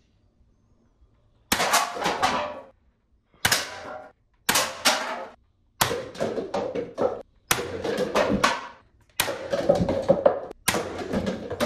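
Toy foam-dart blaster pistol firing seven times, about one to two seconds apart, each shot followed by a short clatter of paper cups being knocked over and tumbling.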